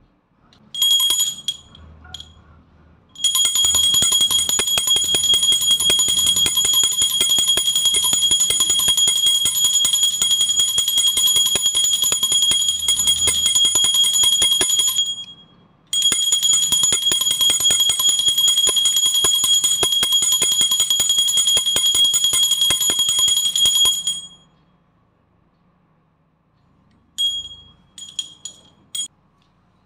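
Small puja hand bell rung rapidly and continuously, a clear high ring over fast clapper strikes. It is rung twice for about ten seconds each, with a short break between, then shaken briefly a few times near the end.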